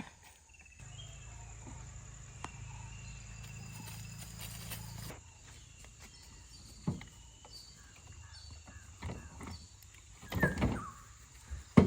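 Quiet outdoor ambience with faint, repeated high chirps. A low steady hum runs from about a second in until about five seconds in. A few sharp knocks come later, with louder sounds near the end.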